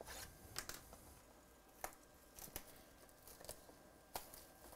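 Plastic shrink-wrap on a sealed trading-card box being slit with a small cutter and pulled at: a few separate faint crackles and rustles of thin plastic film.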